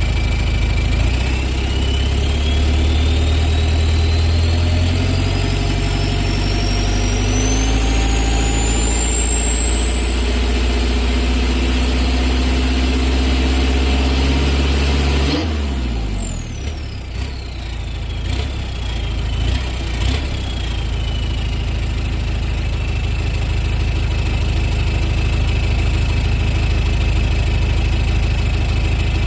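Straight-piped Mitsubishi 4D56T 2.5-litre four-cylinder turbodiesel held at rising revs, its turbo whistle climbing steadily in pitch for about fifteen seconds. Then the throttle is let off: the engine drops back and the whistle falls quickly as the turbo spools down, leaving the diesel idling with a faint steady whistle.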